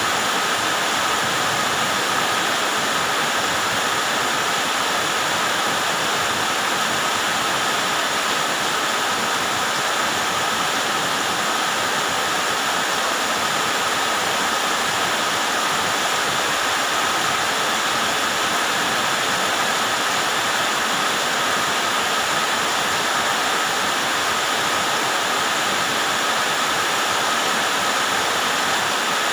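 Heavy rain pouring down steadily, a dense, even hiss of a downpour that neither builds nor eases.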